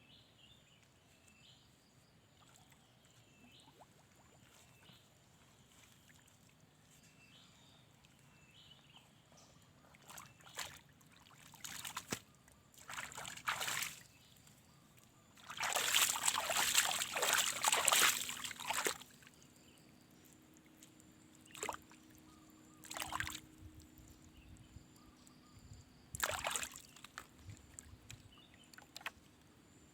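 Water splashing and sloshing in irregular bursts, loudest for a few seconds about halfway through, as mud is dug and stirred in shallow water while searching for mud worms as bait.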